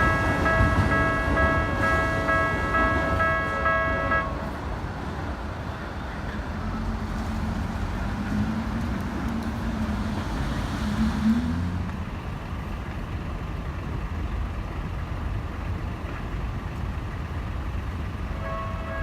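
Japanese level-crossing warning bell clanging in a steady pulsing rhythm; it stops about four seconds in, leaving steady road traffic rumble with a low engine drone partway through. The bell starts clanging again near the end, the signal that a train is approaching.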